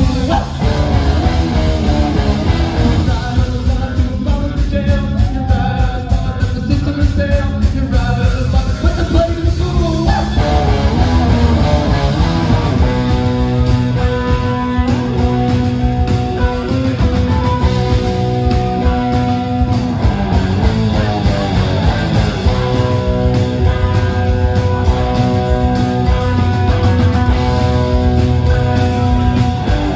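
A live rock band playing electric guitars and drums through the club's PA. Partway through, the playing settles into long held chords.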